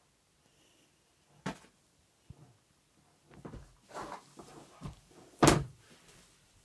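A few knocks and thumps with some rustling in between: one thump about a second and a half in, a scatter of knocks around four seconds, and the loudest thud about five and a half seconds in.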